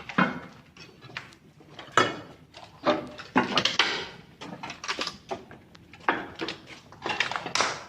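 A string of uneven knocks and thuds, roughly one or two a second, some with a short ring after them.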